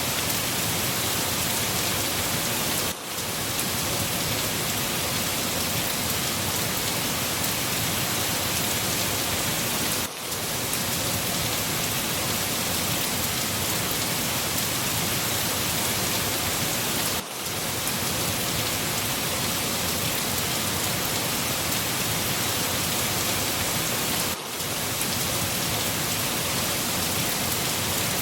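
Rain falling steadily on a surface, an even, dense hiss, with a brief dip in loudness about every seven seconds.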